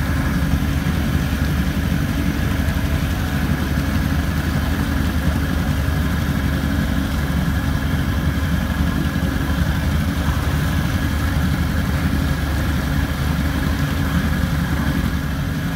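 Towing motorboat's engine running with a steady, unbroken low drone, heard from aboard the boat as it pulls kayaks on a tow rope.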